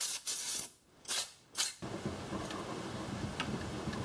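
Compressed-air blow gun blasting air at a small two-stroke saw engine in three short bursts over the first two seconds, then a quieter, steady rustling noise.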